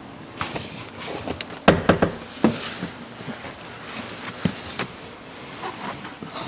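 Knocks, clicks and rustling from someone moving about in a car's cabin, with the loudest thump about two seconds in.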